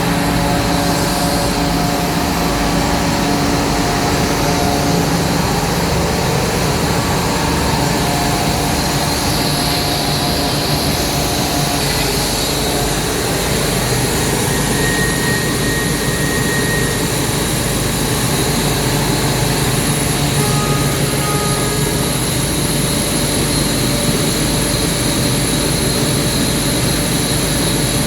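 Ingersoll Rand 132 air compressor running steadily, a loud even mechanical drone with a faint high whine above it.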